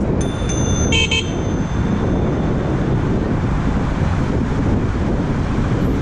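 Loud Bike Mini electronic car horn on a bicycle giving two quick toots about a second in, just after a thin high ringing. Steady wind rumble on the microphone runs underneath.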